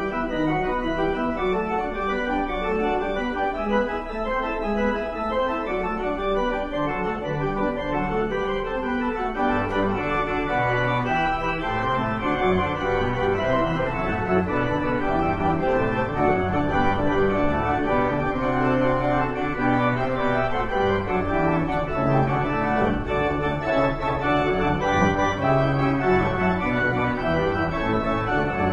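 Church organ playing a piece of sustained chords and moving lines, with deeper bass notes coming in about ten seconds in and the music growing slightly fuller and louder.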